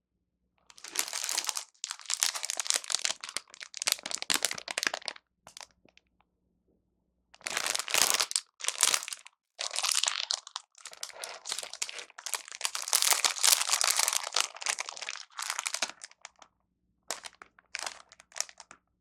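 Plastic food packaging crinkling as it is handled, in several bursts with short pauses between them.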